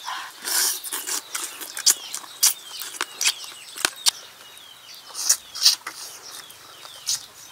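Close-up eating sounds of people sucking and chewing frog meat off the bones: irregular wet smacks, clicks and slurps of lips and mouths. Birds chirp faintly behind.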